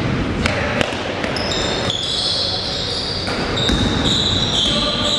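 Basketball game in a gym: the ball bouncing on the hardwood with a few sharp knocks, and shoes squeaking in high, shifting squeals from about two seconds in, over the steady din of the hall.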